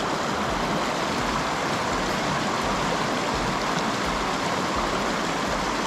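Steady rush of flowing river water mixed with falling rain.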